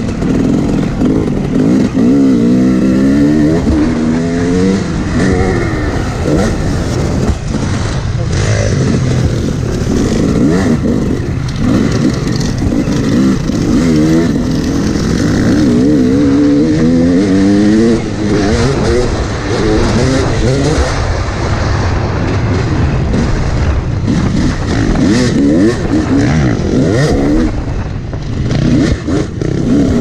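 Yamaha YZ250X two-stroke dirt bike engine revving hard, its pitch climbing again and again as the throttle is opened and the gears are run up, with wind on the microphone.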